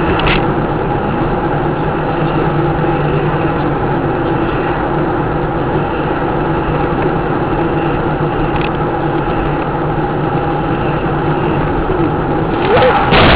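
Car engine and road noise heard from inside a moving car's cabin: a steady drone with a low hum. It grows louder near the end.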